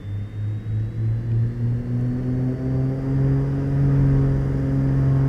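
Beechcraft Baron's twin piston engines being run up to takeoff power, the engine note rising in pitch. It pulses at first, then settles into a steady tone about three seconds in.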